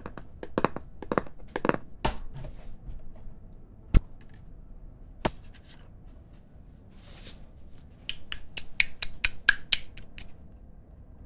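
Sharp clicks and soft taps close to ASMR microphones: a run of short taps and rubs, a single sharp click about four seconds in, then a quick series of crisp clicks, about five a second, from about eight seconds in.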